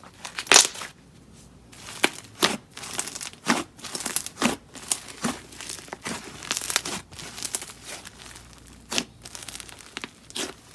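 Hands kneading and pressing slime mixed with clay, making irregular clicks and pops.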